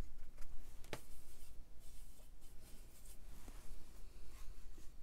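Paintbrush scrubbing and stirring watercolour paint in a metal paint tin's mixing well, a soft irregular scratching, with one sharp tap of the brush on the tin about a second in. Red is being worked into black to darken it.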